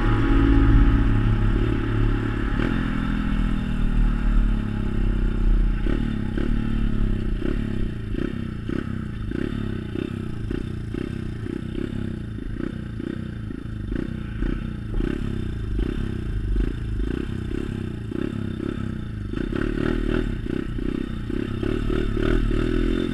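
Pit bike engine heard from the handlebars, its pitch falling as the bike slows over the first few seconds, then running slowly with a regular low knock about twice a second as the bike rides over rough, muddy ground.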